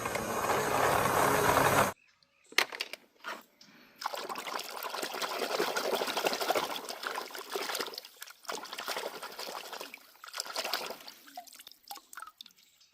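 Water running and trickling while plastic toy cars are washed, the flow stopping and starting several times, with a few sharp clicks between spells.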